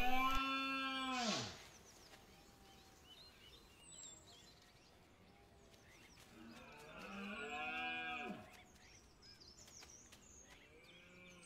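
A rutting stag calling twice: two long, moaning roars about six seconds apart, each rising then falling in pitch.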